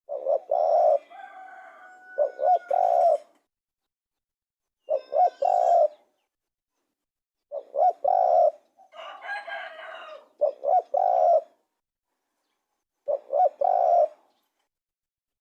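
Spotted dove cooing: about six short phrases of a few quick coos run into a longer coo, repeated every two to three seconds. Fainter, higher chirping calls come in between some of the phrases.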